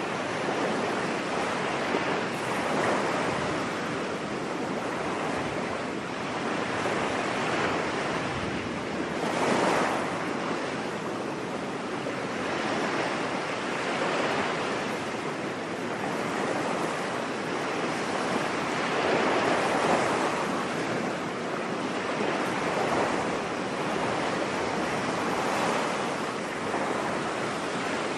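Ocean waves breaking on a beach: a steady wash of surf that swells and falls back every few seconds.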